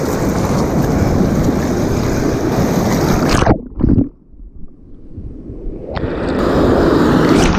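Surf and wind rushing loudly on a body-worn action camera's microphone. About three and a half seconds in, water washes over the camera and the sound suddenly drops to a muffled underwater rumble. It comes back to the full rush about two seconds later.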